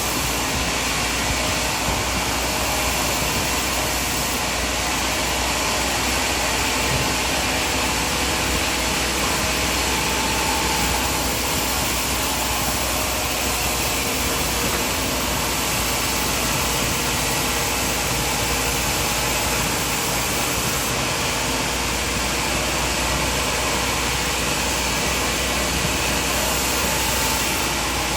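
Sawmill machinery running steadily, an even mechanical noise that stays at one level with no distinct cuts or knocks.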